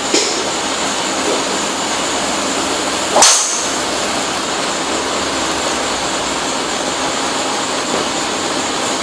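TaylorMade Burner 9.5° driver striking a golf ball off a tee: one sharp crack a little over three seconds in, ringing out briefly, over a steady hiss of background noise.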